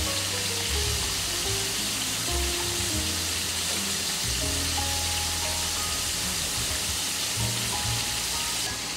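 Strips of food frying in shallow oil in a frying pan, a steady sizzle that cuts off abruptly just before the end.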